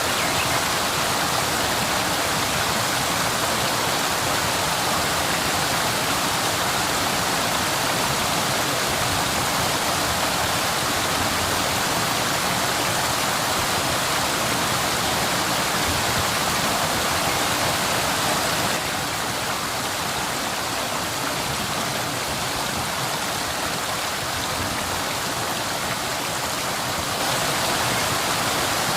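Waterfall: a steady rush of falling water. It drops slightly in level about two-thirds of the way through and comes back up near the end.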